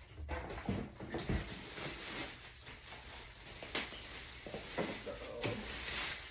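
Unboxing noises: packaging rustling and crinkling as it is handled, with a series of light knocks and clicks.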